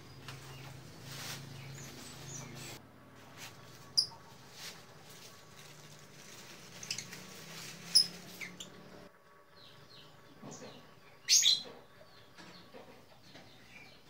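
Caged lovebirds giving short, shrill chirps every few seconds, the loudest a quick run of calls about eleven seconds in.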